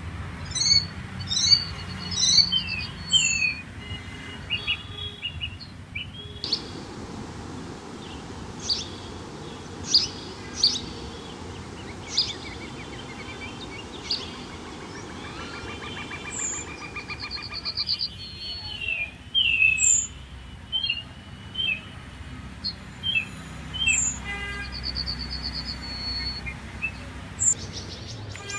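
Small birds chirping: short, sharp notes and quick downward-sliding calls repeated throughout, over steady low background noise. A high hiss comes in near the end.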